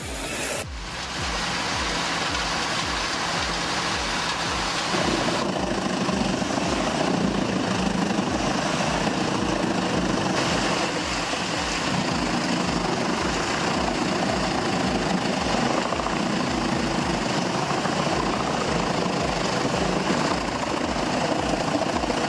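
Industrial wood chipper running and chipping wood: a loud, dense, steady grinding noise that changes in character about five seconds in.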